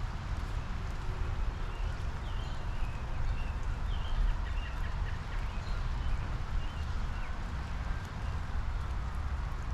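Steady spring rain shower falling, with small backyard birds chirping several short calls through the middle of the stretch.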